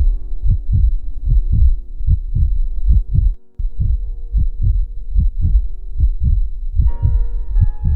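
Heartbeat sound effect: a quick, even run of low thumps over a steady hum, broken by a brief dropout partway through. Near the end, higher sustained tones join in.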